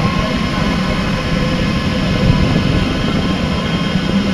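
Steady machine noise from a Delta WASP 3MT large delta 3D printer running, with faint steady tones above the rumble, heard from inside a tall printed plastic vase.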